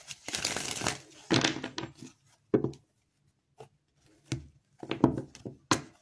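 Tarot cards being handled: a string of short rustles and taps as the cards are shuffled and set down on a hard surface, about seven separate bursts with pauses between.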